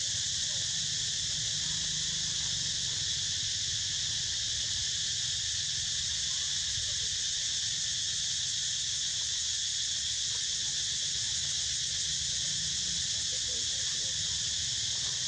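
Steady, unbroken chorus of high-pitched insects, with a low rumble underneath.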